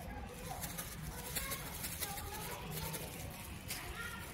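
Indistinct background chatter of people's voices, faint and too far off to make out words.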